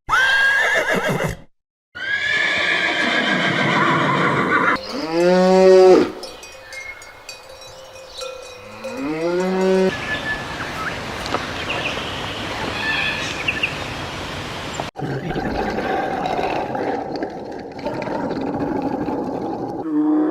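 A run of farm-animal calls from several short clips, one after another. Two long calls rise and then fall in pitch, near the middle.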